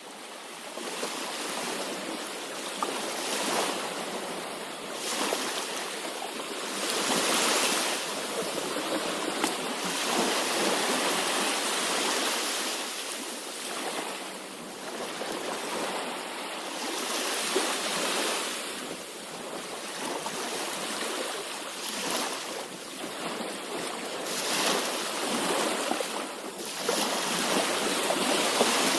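Sea waves washing onto a shore, a continuous hiss of surf that swells and falls back every few seconds. It fades in from silence right at the start.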